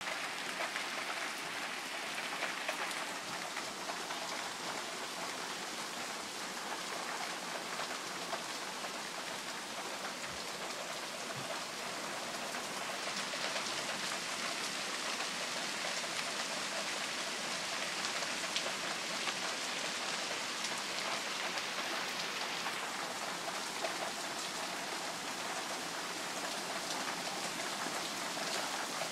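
Steady rain falling, growing a little heavier for about ten seconds in the middle before easing back.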